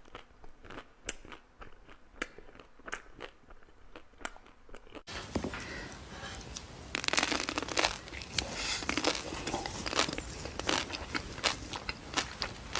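Close-miked eating of ice cream: chewing with sharp mouth clicks, then, after an abrupt cut about five seconds in, louder and denser crunching bites.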